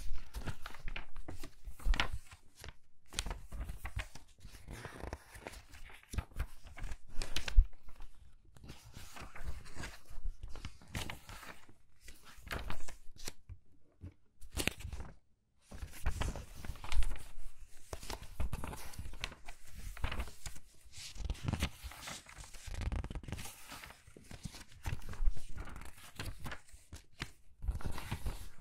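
Crinkly magazine pages turned quickly by hand, one crackling, rustling page after another, with a pause of about two seconds midway.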